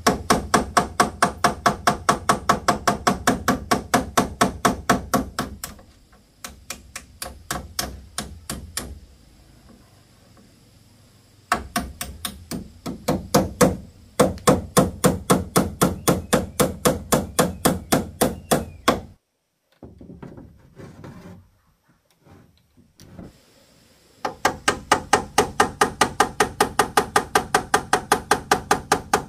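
Claw hammer nailing corrugated roofing sheet down onto the wooden rafters: quick, even blows, about four or five a second, in runs of several seconds with short breaks between them.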